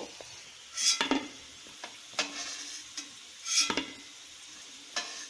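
Fish-egg fritters sizzling in hot mustard oil in an aluminium kadai, with a utensil scraping and stirring through the pan twice, about a second in and again around three and a half seconds, as the fried fritters are scooped out.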